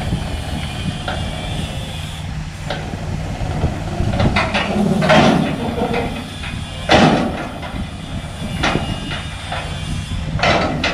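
An engine running steadily, with several separate knocks and clanks over it; the loudest comes about seven seconds in.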